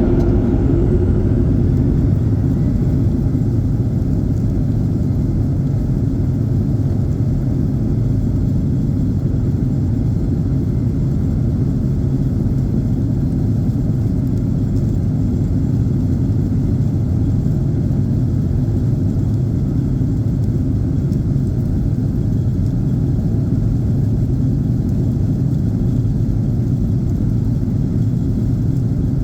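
Boeing 737-900ER's CFM56-7B jet engines on takeoff, a steady deep rumble at an even level. A fainter higher whine fades out in the first couple of seconds.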